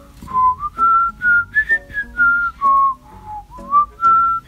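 A person whistling a leisurely tune: clear single notes that step and glide up and down, with short breaks between phrases.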